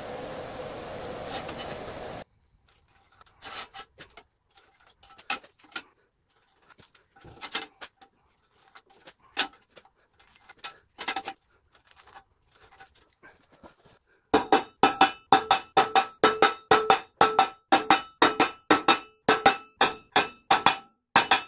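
Hammer striking a center punch into a 3/4-inch steel plate: a quick, even run of sharp ringing blows, about two to three a second, starting about two-thirds of the way in. Before that comes a steady hiss that cuts off about two seconds in, then faint scattered taps and scrapes of a ruler and marker on the plate.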